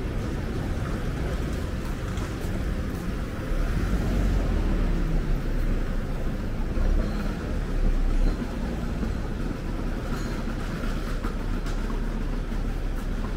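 City street background rumble of passing traffic, a steady low drone that swells louder for about five seconds in the middle.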